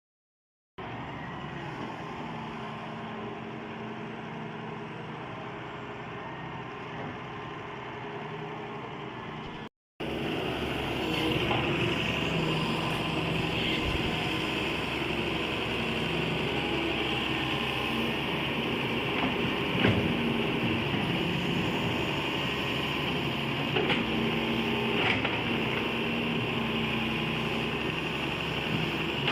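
Excavator engine running steadily. It breaks off about ten seconds in and comes back louder, with a few sharp knocks or clanks over it.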